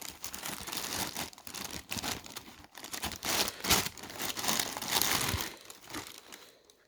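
Wrapping paper inside a boot box being handled and unfolded, crinkling and rustling in quick irregular strokes that die away in the last second or so.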